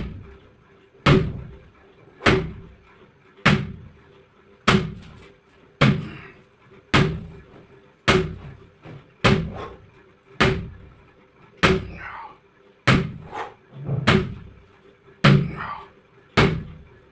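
Sledgehammer striking a tyre over and over in a steady rhythm, a heavy thud about every 1.2 seconds.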